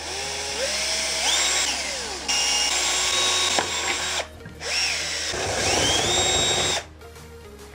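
Cordless drill boring a larger hole through a plastic bottle, in three runs: the motor whine rises in pitch as it spins up and sags again, with short breaks between runs, and stops shortly before the end.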